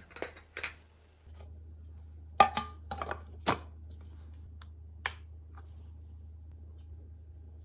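Hard plastic knocks and clatter as lids are pressed onto the glass jars and the clear plastic cover is set onto a Severin yogurt maker. The sharpest knocks come between about two and three and a half seconds in. A single click about five seconds in is the maker's rocker switch being turned on.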